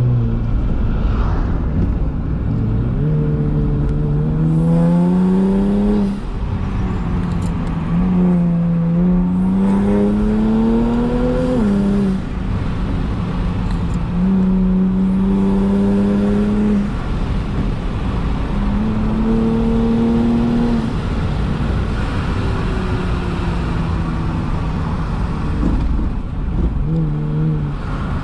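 Kia Stinger GT's twin-turbo V6 engine and exhaust, heard from inside the cabin, pulling hard under acceleration. The pitch climbs for a few seconds and falls back at each upshift, about five times over.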